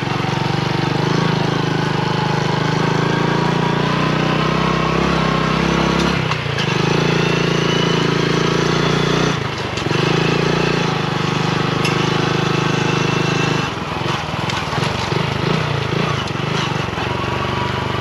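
Honda Trail 125's air-cooled single-cylinder engine running under way on a test ride, its note dipping briefly and picking up again about 6 and 9 seconds in as gears are changed, then running more unevenly after about 14 seconds.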